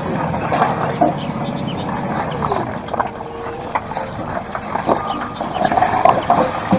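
Large wheel loader's engine running as its bucket digs into a pile of broken rock, with rocks clattering and knocking irregularly against the bucket and each other.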